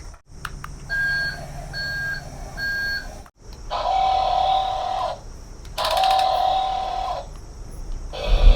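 Electronic beeping from a toy remote-control excavator: three short beeps about a second apart, then three longer buzzing electronic tones of about a second and a half each, with short gaps between them.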